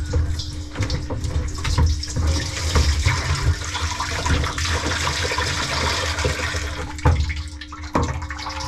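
Water rushing in a kitchen sink's drain plumbing, with rubbing and knocking close to the microphone and a steady low hum underneath. The rushing dies away about seven seconds in, marked by a sharp click.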